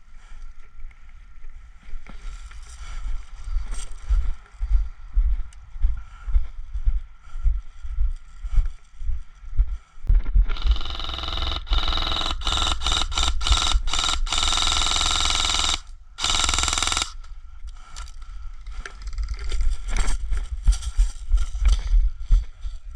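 Irregular low knocks and rustling of movement under a faint steady whine. About ten seconds in, a loud rapid mechanical buzz runs for some five seconds, breaks off briefly, and comes again for about a second.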